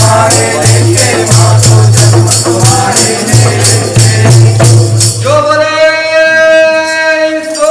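Devotional hymn singing with rhythmic jingling hand percussion, about three strikes a second. From about five seconds in, a voice holds one long note.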